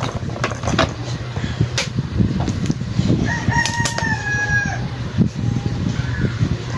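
A rooster crowing once, a long call held on a steady pitch about three seconds in, over scattered light clicks and a steady low hum.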